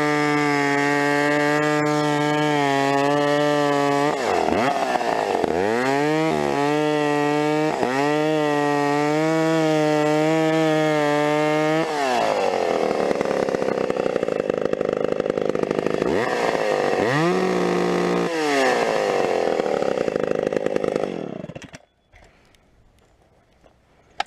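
Vintage McCulloch Pro Mac 700 two-stroke chainsaw running at high revs and cutting into a log, its engine pitch dropping and recovering several times, then shut off near the end. The saw feels soft on the top end and won't rev out high enough, the sign of a rich high-speed carburetor circuit.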